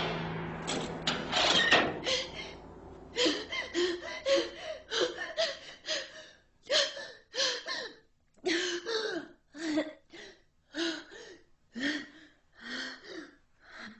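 A person gasping over and over in short, voiced breaths, about one or two a second, after a loud sound fades out in the first couple of seconds.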